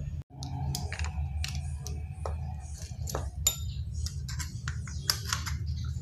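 Hard plastic clicks and knocks of a washing-machine drain pump and its housing being handled, over a steady low hum.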